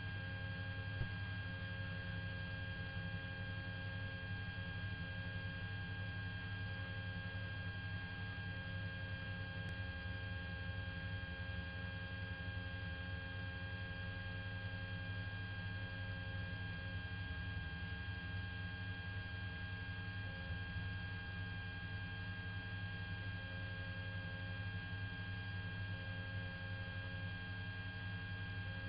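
Steady droning hum with several constant whining tones that never change, the cabin and electrical noise typical of a helicopter's camera audio feed.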